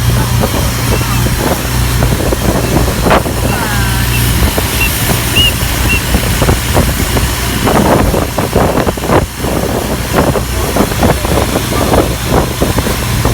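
A motor vehicle's engine running steadily with a low hum, and frequent knocks and rattles over it.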